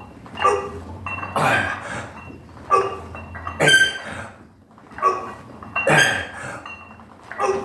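A man breathing hard through heavy preacher curl reps: a forceful, hissing breath out with each lift, about every two and a half seconds. A shorter, squeaky sound comes just before each breath.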